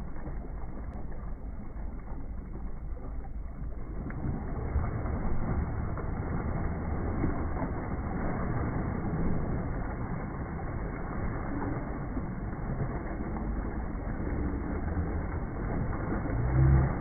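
Water splashing and churning as a great white shark thrashes at bait on a line at the surface, over a steady low rumble. The splashing grows busier about four seconds in and swells loudest near the end.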